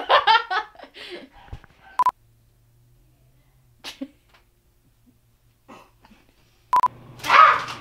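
Two short beeps at one steady pitch, each starting with a click, about five seconds apart, between outbursts of a woman's voice: one at the start, and a loud breathy burst right after the second beep near the end.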